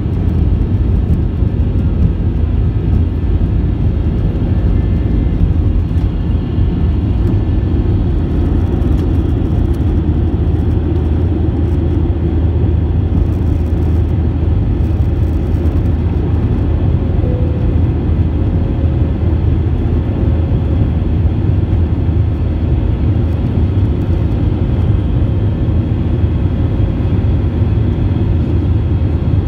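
Airbus A320 jet engines at takeoff thrust, heard inside the cabin over the wing: a loud, steady rumble as the airliner lifts off the runway and climbs out.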